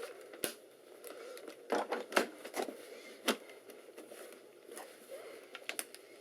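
Scattered sharp clicks and light knocks of hard plastic as a Compaq SLT/286 docking station is handled and its battery compartment opened and checked.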